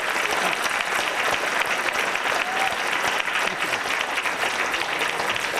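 Audience applauding: a roomful of people clapping steadily.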